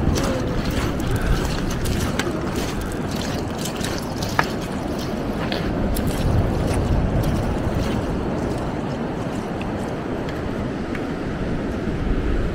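Wind buffeting the microphone over the wash of sea surf on a beach, with a few light clicks.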